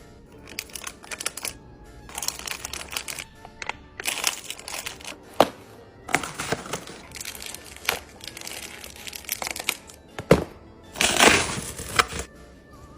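Plastic packaging crinkling in bursts as packaged food is handled and set down, with a few sharp knocks, one about five seconds in and one about ten seconds in.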